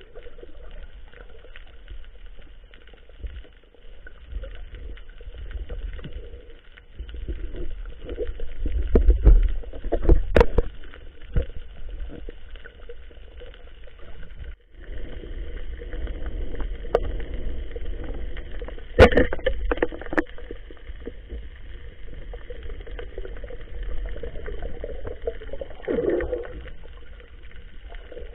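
Underwater sound heard through an action camera's waterproof housing: muffled water movement and low rumble as the diver swims, with a few sharp knocks.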